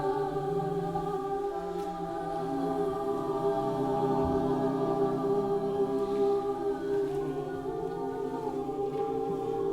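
A choir singing long held chords, several voices sustaining steady notes together.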